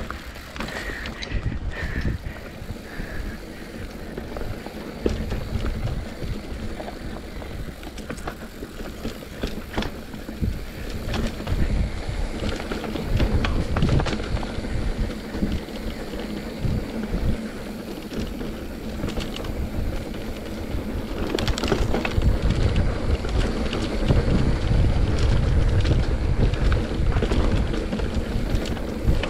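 XC/trail mountain bike riding down a dry dirt track: tyres rumbling over the ground, the bike rattling and knocking over bumps, and wind on the microphone. It grows louder and rougher about two-thirds of the way through.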